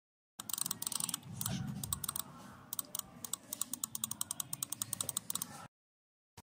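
Typing on a computer keyboard: a run of quick, irregular key clicks that starts about half a second in and stops shortly before the end.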